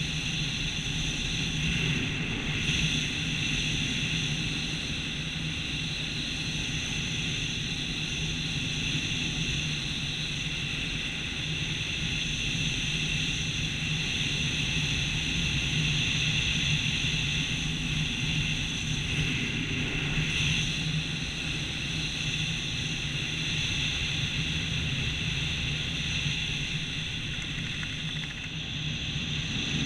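Steady wind noise rushing over a camera worn by a skydiver under an open parachute canopy, with a constant low hum and a high whistle that hold the same pitch throughout.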